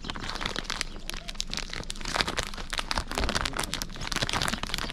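Plastic sports-card sleeves and rigid card holders crinkling and clicking as they are handled, a dense, irregular run of small crackles.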